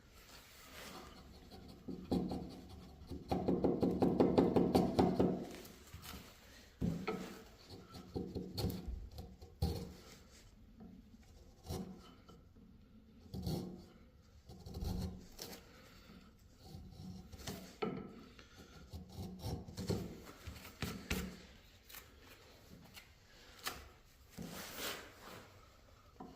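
Hand chisel scraping and paring a bandsawn wooden honey dipper blank. A fast run of scraping strokes comes about two to five seconds in and is the loudest part. After that come scattered single scrapes and light taps.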